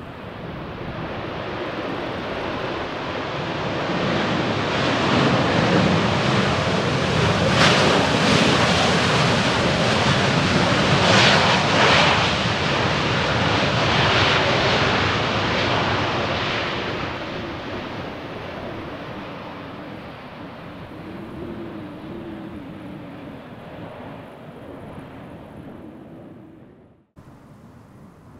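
Jet airliner flying past on its landing approach: the engine roar swells to a peak and then fades away. It cuts off suddenly near the end.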